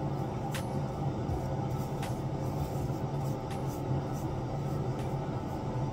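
Steady low hum of background room noise, with faint soft ticks about every second and a half.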